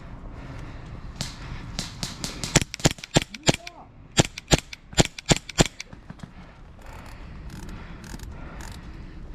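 Airsoft guns firing: about ten sharp shots in two quick strings, roughly three a second, starting about two and a half seconds in, with fainter shots around them.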